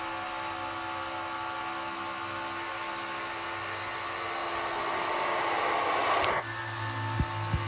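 Steady whining, engine-like drone of a racing sound effect. A rushing noise builds over a couple of seconds and cuts off sharply, followed by a low hum and two short clicks.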